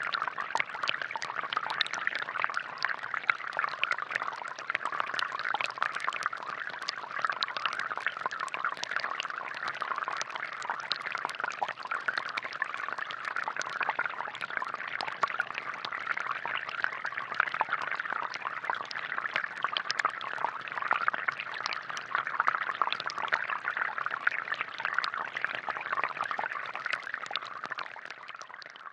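Water splashing and trickling steadily from a homemade plastic-bottle fountain that runs on air pressure with no pump, fading out near the end.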